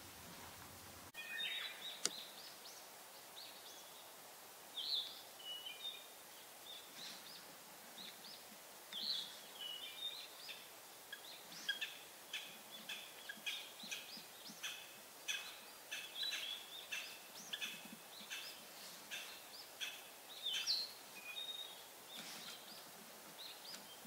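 Japanese green woodpecker calling: short, high notes, scattered at first, then a steady run of repeated notes at about two a second.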